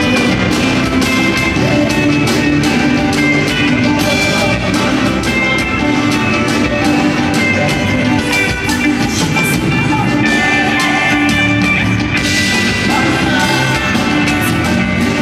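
Live band playing loudly during a sound check: drum kit, electric guitars and keyboards, with singing over them. The cymbals grow louder about twelve seconds in.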